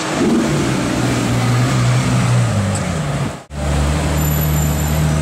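A supercar engine revs and its pitch falls away over about three seconds. After an abrupt cut, a Ferrari 458 Italia's V8 runs steadily at low revs.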